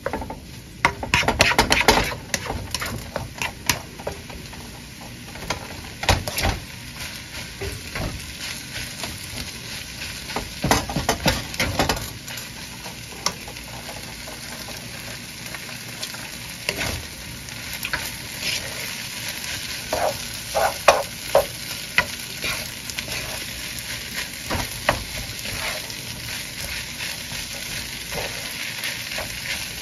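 Fried rice sizzling in a nonstick skillet while a spatula stirs and scrapes it, in bursts of scraping strokes over a steady sizzle.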